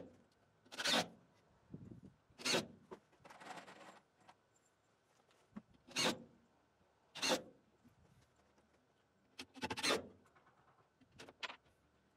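Handling noises at a plywood shelf: about six short scrapes and rubs, a second or more apart, with a longer soft rubbing hiss about three to four seconds in.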